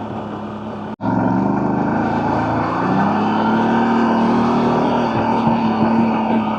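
CFMoto CForce 1000 Overland ATV's V-twin engine running. About a second in the sound cuts out for an instant, then comes back louder, its pitch rising for a couple of seconds before holding steady.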